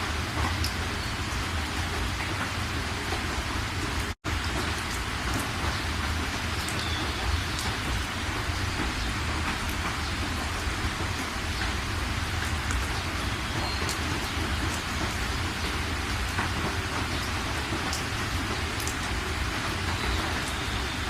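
Steady rain falling, with scattered sharp drop impacts ticking through it. The sound cuts out completely for an instant about four seconds in.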